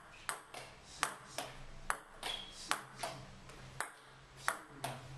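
Table tennis rally: the ball clicks sharply off the paddles and bounces on the table in an even back-and-forth rhythm of about two clicks a second.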